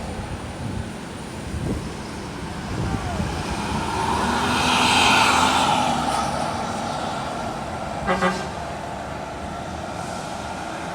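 A bus moving off and passing close by, its engine and road noise swelling to a peak about five seconds in and then easing. Near the end come two quick horn toots.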